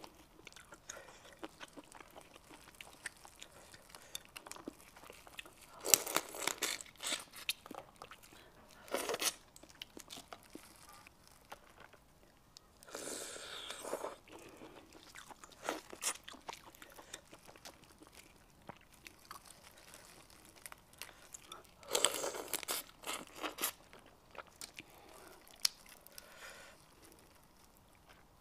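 Boiled crawfish shells cracked and peeled by gloved hands and the meat eaten, close to a clip-on microphone: short bursts of cracking and crunching a few seconds apart, with chewing and quiet stretches between.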